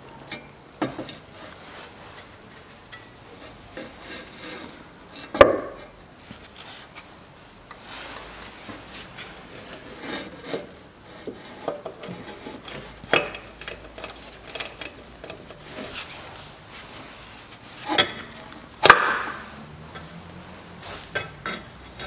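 Scattered metal knocks, clunks and rubbing as a front drive shaft is worked into the side of a manual gearbox. The loudest knock comes about five seconds in, with two more close together near the end.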